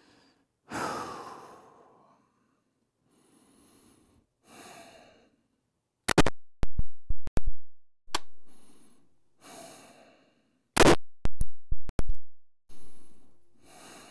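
AR-15 firing 5.56 rounds during a 25-meter zero: loud, sharp shots in two quick strings, one about six seconds in and another about eleven seconds in, with fainter decaying reports in between.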